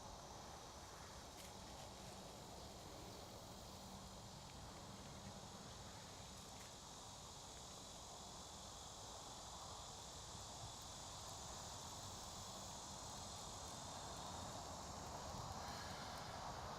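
Faint, steady outdoor background with a high, even insect drone, growing slightly louder near the end.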